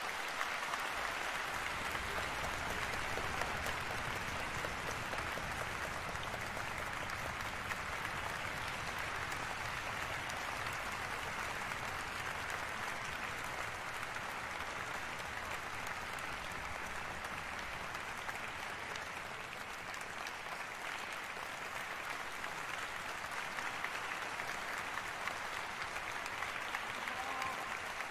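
Concert-hall audience applauding steadily, a dense wash of clapping that dips slightly in strength partway through.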